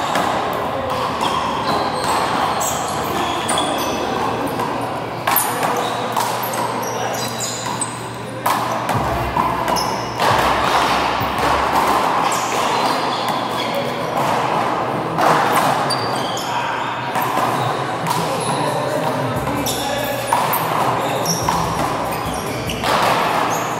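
Handball rally: a small rubber ball slapped by hand and smacking off the front wall and floor again and again, echoing around a large indoor court.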